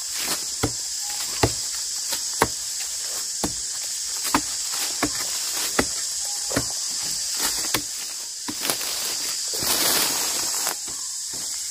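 Steady high-pitched insect drone with scattered sharp clicks and snaps, and a brief rustle about ten seconds in.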